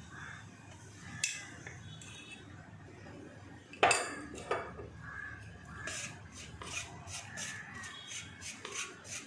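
A spoon clinks and then knocks sharply against a clay cooking pot as chilli powder is added to hot oil. From about two-thirds of the way through, a spatula scrapes round the pot in quick strokes, about four a second, stirring the powder.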